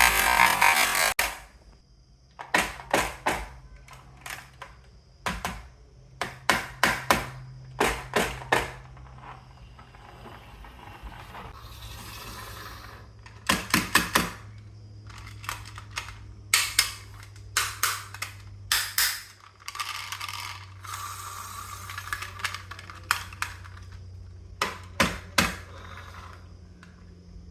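Marbles clacking down a wooden marble run: a loud rattling rush in the first second, then repeated clusters of sharp clicks as marbles hit and drop through the track pieces, with two spells of softer rolling.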